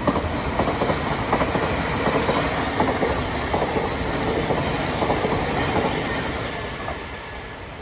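Class 700 Thameslink electric multiple unit passing through the station, a steady rush of wheels on rail with rapid clicking from the rail joints, fading away near the end.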